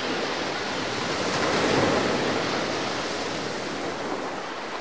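Sea surf washing on the shore: a steady rush that swells to a peak about two seconds in, then slowly eases off.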